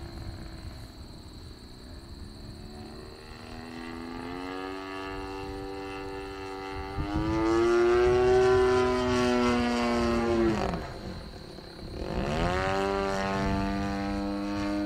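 Two-stroke gas engine of a 50–60 cc Edge 540T radio-controlled aerobatic model plane in flight, propeller buzzing overhead. The engine note rises and is loudest about eight to ten seconds in as the plane passes close, then its pitch dips sharply near eleven seconds before climbing back up.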